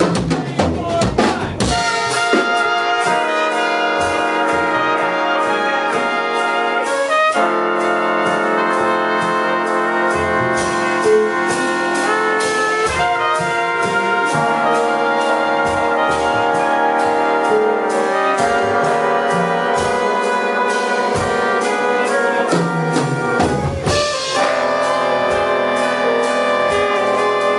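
A big jazz band's brass and woodwind sections (trumpets, trombones, saxophones) playing sustained ensemble chords over bass and drums. The chords shift every few seconds, with drum strokes throughout.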